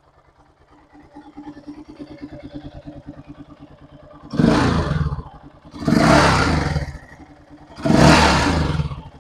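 2006 Yamaha XT660R's single-cylinder four-stroke engine idling with an even pulse, then revved hard three times, each rev lasting about a second.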